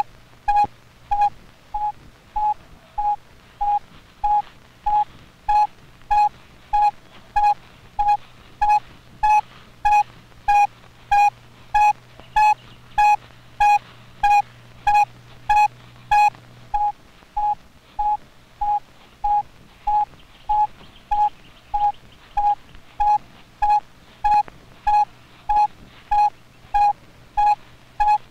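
Radio-telemetry receiver beeping with the pulsed signal from a dingo's tracking collar: a steady train of short, even, mid-pitched beeps, about two a second. The signal is strong, the sign that the collared dingo is very near.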